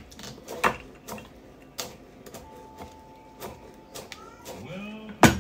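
Chef's knife chopping fresh chives on a plastic cutting board: a run of sharp, irregular knocks, the loudest one near the end.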